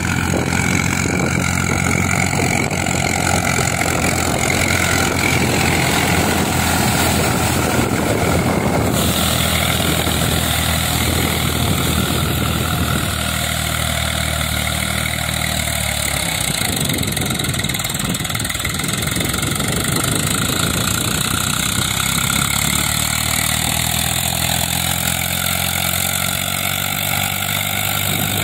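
Eicher 380 tractor's diesel engine running steadily under load as it puddles a flooded paddy field on cage wheels. The engine note shifts slightly about 16 seconds in.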